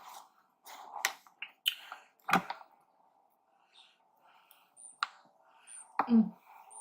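Close-up eating sounds: scattered wet mouth clicks and smacks while chewing, a few seconds apart, over a faint steady background hum.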